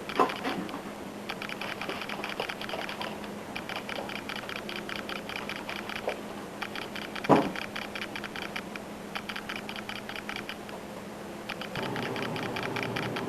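Repeated bursts of fast, fine clicking, each lasting a second or two with short gaps between them, and two louder knocks, one at the very start and one about midway. A steady noise comes in near the end.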